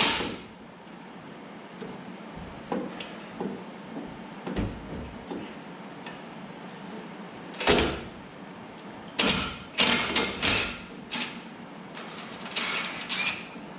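A ratchet or wrench working bolts on the engine bay: a scatter of short mechanical clicks and clanks, with a cluster of several close together about nine to eleven seconds in.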